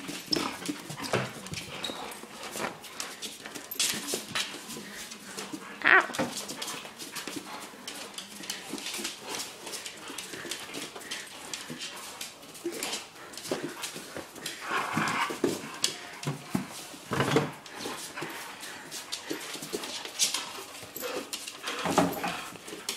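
Two dogs, a chocolate Labrador and a Treeing Walker Coonhound, playing tug-of-war with a toy: scuffling and clicking on a wood floor, with occasional dog whines and other brief dog vocal sounds.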